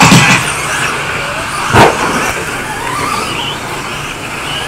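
Radio-controlled 2wd stadium trucks running on a dirt track, with a faint rising motor whine about three seconds in. There are loud sudden noises right at the start and again just under two seconds in.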